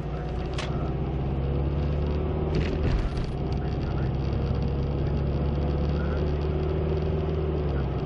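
Car driving at a steady speed on an icy road, heard from inside the cabin: a steady engine drone under tyre and road noise. There is a brief thump about three seconds in, and the engine note changes near the end.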